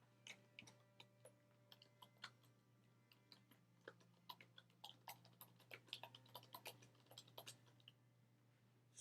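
Faint typing on a computer keyboard: irregular key clicks that come fastest in the middle, over a low steady electrical hum.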